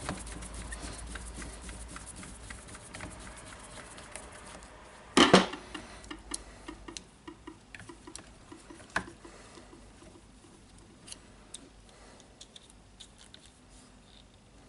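Small clicks and taps of hands working a power tool's wiring and connectors, with one louder sharp clack about five seconds in; the clicks grow fainter and sparser toward the end.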